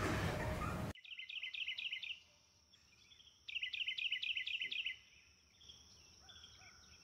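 Bird chirping: two bursts of rapid, repeated high chirps, each about a second long, then fainter scattered chirps. A louder, noisy background stops abruptly about a second in, just before the first burst.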